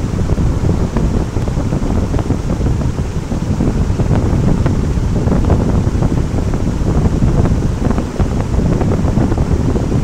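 Large waterfall pouring heavily onto rocks: a loud, steady rushing roar.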